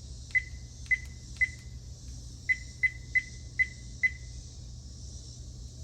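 RedTiger F7NP dashcam's button click tone: eight short, high beeps at irregular spacing as its menu buttons are pressed, three near the start and five more in quick succession toward the middle, over a steady low hum.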